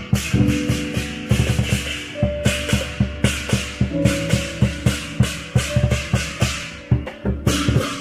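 Chinese lion dance percussion: a large drum beaten in quick, driving strokes, several a second, with hand cymbals clashing over it in stretches.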